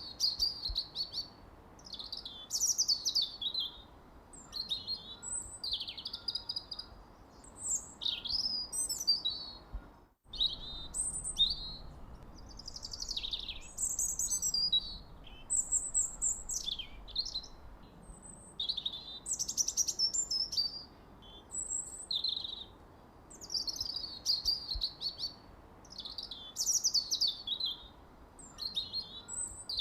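Songbirds chirping and trilling in quick, varied high-pitched phrases, one after another with hardly a pause. The sound cuts out for a moment about ten seconds in.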